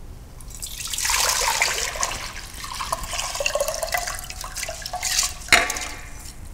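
Water and soaked brown rice poured from a glass bowl into a stainless steel pressure cooker pot, splashing and pattering as the grains slide in. Near the end there is a single sharp knock.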